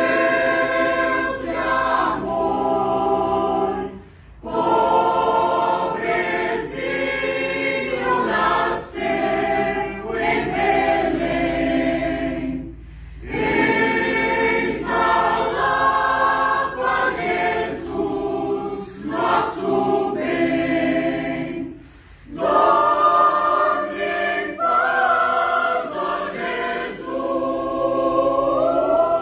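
Choir singing a Christmas song, in long phrases broken by brief pauses about every nine seconds.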